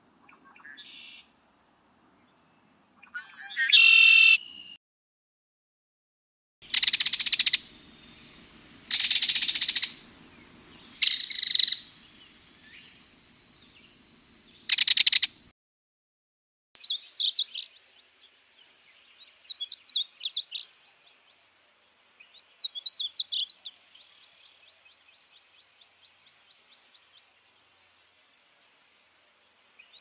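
Red-winged blackbird calling and singing, with four loud songs about a second long each in the first half. Then a belted kingfisher gives three rapid, dry rattles a few seconds apart, followed by a fainter run of ticks.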